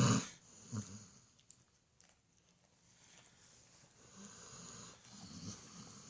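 A dog snoring loudly in her sleep: a loud burst right at the start, a short snore about a second in, then a longer stretch of snoring about four seconds in.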